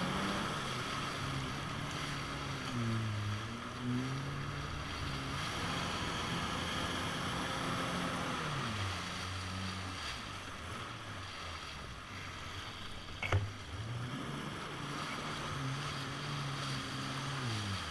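Kawasaki jet ski engine running underway, its pitch rising and falling again and again as the throttle is worked, over the hiss of water spray from the wake. A single sharp click about thirteen seconds in.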